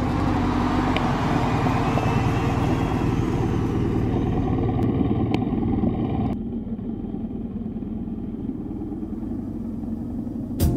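Motorcycle engine running, with wind and road noise over a steady low rumble. About six seconds in the noise drops off abruptly, leaving a quieter low idle.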